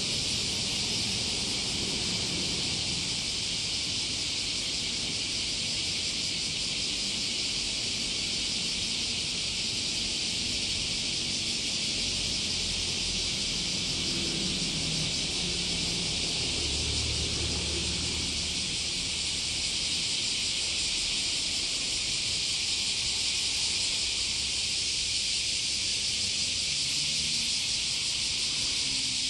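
Steady high-pitched hiss of outdoor mudflat ambience, unchanging throughout, with a faint low hum for a few seconds past the middle.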